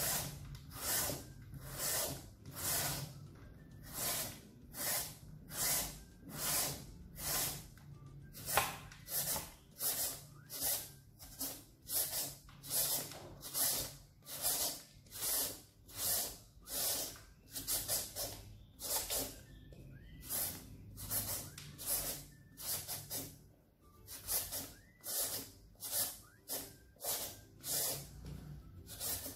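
Hand-held julienne peeler shredding a peeled green papaya, each pull a short rasping scrape. The strokes repeat steadily at about two a second.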